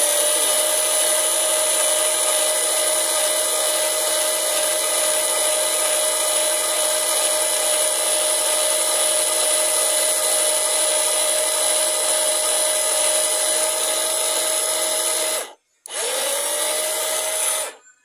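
Electric gear motor of a homemade remote-controlled winch spinning its PVC cord spool: a steady whine that rises and settles in pitch as it spins up. It runs for about fifteen seconds, stops briefly, then starts again and runs about two more seconds before cutting off.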